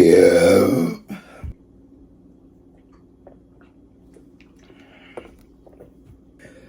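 A person's loud, deep belch lasting about a second at the very start, followed by a few seconds of quiet with faint small clicks.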